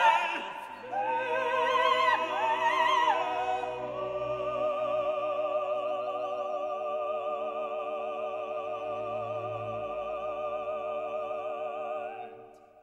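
Operatic singing with orchestral accompaniment: a voice with wide vibrato sings a short phrase, then holds one long note that fades out near the end.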